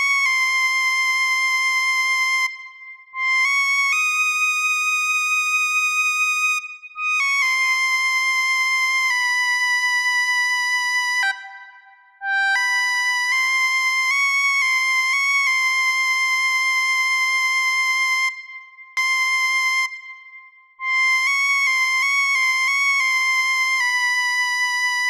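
Background music: a slow, high melody played one note at a time, with long held notes and about four short breaks.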